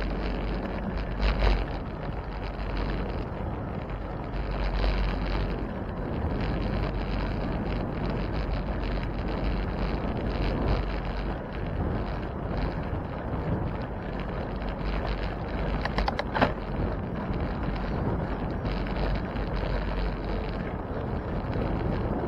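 Wind rumbling on the microphone over steady road noise from a moving bicycle, with a few sharp clicks about a second and a half in and again around sixteen seconds in.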